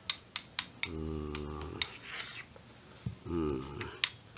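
Metal spoon clinking against a ceramic bowl while stirring fish-bait paste: four quick sharp clinks in the first second, another just before two seconds and one near the end. Two short vocal sounds fall between them.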